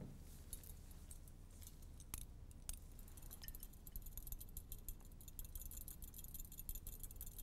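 Glass test tube rattling and clinking in a metal test-tube holder as it is shaken to dissolve a solid salt. A few separate clicks come first, then from about three seconds in a quick, light, continuous jingling.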